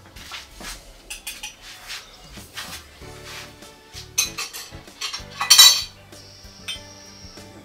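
Cutlery and dishes clinking and knocking at a breakfast table as food is handled, with one louder clatter about five and a half seconds in.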